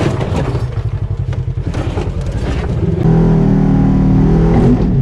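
Polaris RZR 1000 side-by-side's engine running at low speed over rough ground, with knocks and rattles from the cab. About three seconds in it gets suddenly louder and revs, its pitch climbing and wavering.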